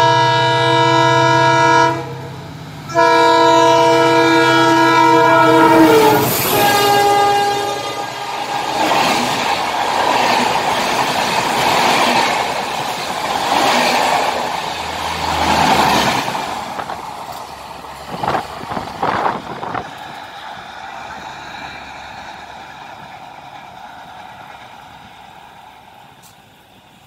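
WDP-4 diesel locomotive sounding its horn in two long blasts over the low drone of its engine, the second blast dropping in pitch as the locomotive passes at speed. Then the coaches rush by with rhythmic wheel clatter over the rail joints, the rumble fading away as the train leaves.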